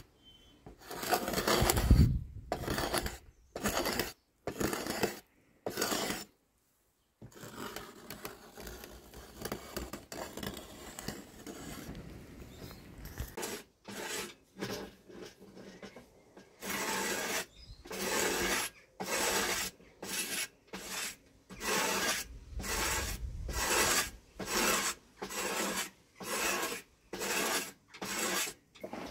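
A blade drawn along a wooden staff in repeated rasping strokes, stripping bark and shaving the wood. The strokes come unevenly at first, then regularly about once a second in the second half, each one a short scrape.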